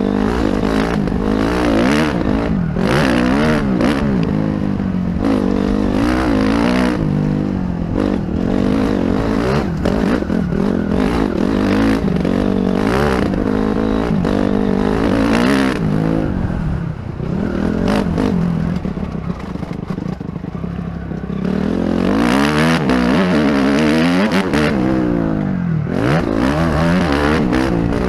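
Dirt bike engine heard from the rider's helmet, revving up and dropping back over and over as the rider works the throttle and shifts gears. The throttle eases off for a few seconds past the middle, then the engine revs hard again.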